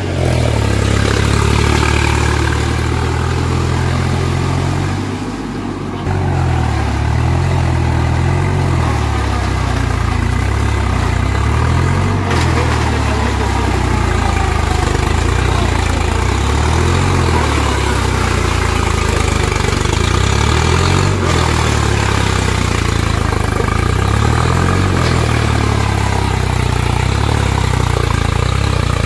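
Swaraj 735 FE tractor's three-cylinder diesel engine running under load as it drives its cage wheels through flooded paddy mud, puddling the field. The engine note rises and falls with the load, and the sound dips briefly about five seconds in.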